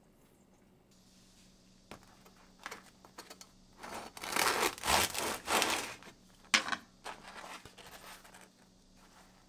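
Crisp bread crust crackling and tearing in a run of short rustling bursts, loudest about halfway through, with one more sharp crackle shortly after. A faint steady hum starts about a second in.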